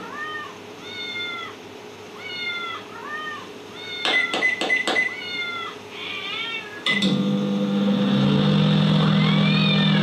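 Sound-effect mix playing back: a cat meowing over and over, a cluster of sharp clicks around four seconds in, then another click about seven seconds in and a microwave oven's steady hum starting up, with the cat still meowing over it.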